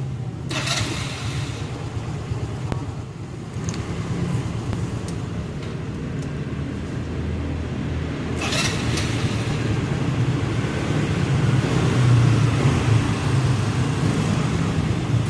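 SYM Z1 scooter's single-cylinder engine running warm at a low, unsteady idle with an abnormal engine noise, the fault its owner blames on idle speed falling to about 1000 rpm once warmed up. Two short rushing noises come through, about half a second in and about eight seconds in.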